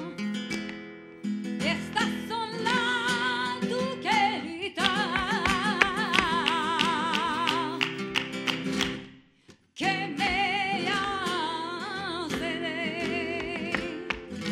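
Flamenco soleá: a singer with a wide vibrato over flamenco guitar, with sharp percussive strikes in the middle stretch. The music stops briefly about two-thirds through, then picks up again.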